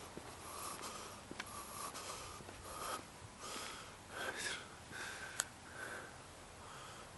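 Dry bamboo leaves, grass and stems rustling in short, irregular bursts as they are brushed and pushed aside, with a sharp click about five seconds in.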